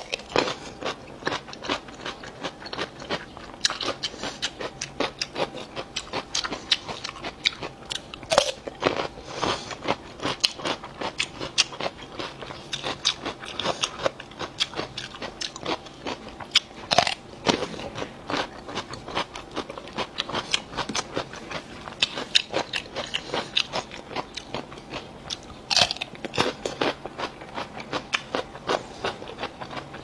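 A crisp raw fruit cucumber being bitten and chewed close to the microphone: a steady run of fast, wet crunching chews, with a louder snap of a fresh bite about every eight or nine seconds.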